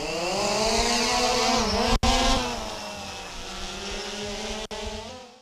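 Small quadcopter drone's propellers whining as the motors spin up and it lifts off, the pitch rising over the first second or so and then holding steady before fading away. The sound drops out briefly about two seconds in and again near the end.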